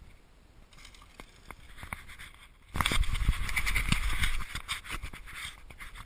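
Mountain bike riding down the dirt jump line: tyre noise on dirt and leaves builds with a few knocks, then about three seconds in comes a sudden loud rush with heavy low thumps as it passes close by, fading over the last second or two.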